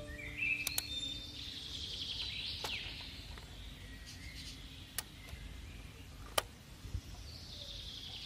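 Birds chirping, with a few sharp clicks of hard plastic as the toy livestock trailers' hinged rear ramps are swung shut.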